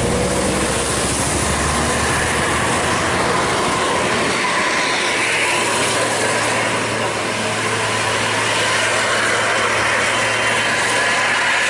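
A large coach bus driving past on wet asphalt: its engine running and its tyres hissing through the water on the road, with a steady low engine hum from about four seconds in as it pulls away.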